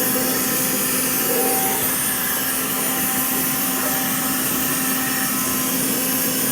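Black+Decker APB3600 Dustbuster cordless handheld vacuum running steadily with a constant motor whine, sucking up small bits of 3D-printer plastic from the floor.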